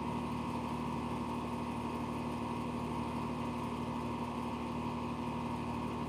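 A steady motor hum at a constant pitch, unchanging throughout.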